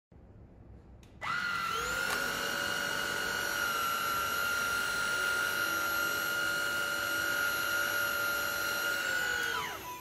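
Cordless stick vacuum cleaner (보아르 Force D14) switched on about a second in. Its motor spins up to a steady high whine, runs, and is switched off near the end, the pitch falling as it spins down.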